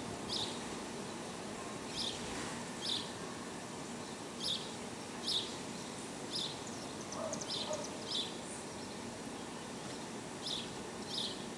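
Short, high chirps repeating irregularly, about once a second, over a steady outdoor background hiss.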